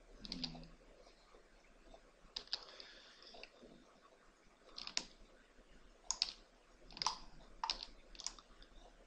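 Computer keyboard and mouse clicks: about seven sharp, separate taps spaced roughly a second apart, with a brief low hum near the start.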